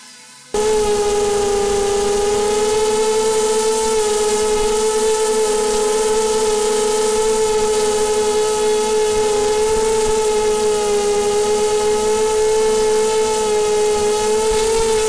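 Small FPV quadcopter's motors and propellers whining loudly at a steady, slightly wavering pitch, heard up close from its onboard camera. The whine starts abruptly about half a second in.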